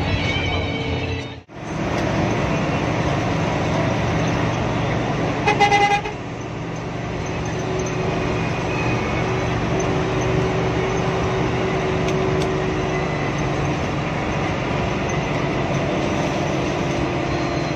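Steady engine and wet-road noise of a Hino AK8 bus, heard from inside the cab while driving in rain. A short, loud horn blast comes about five and a half seconds in, and the sound drops out briefly near the start.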